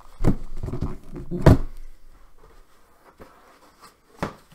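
Hard plastic gun case being shut: a run of knocks and thumps as the lid comes down, the loudest about a second and a half in, then a couple of lighter clicks near the end.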